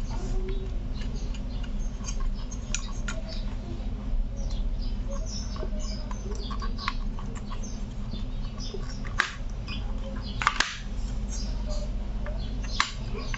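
Screwdriver and handling noises from an induction cooktop's circuit board as it is unscrewed and lifted: scattered light clicks and taps, with three sharper clicks in the second half, over a steady low hum. Faint high chirps come and go throughout.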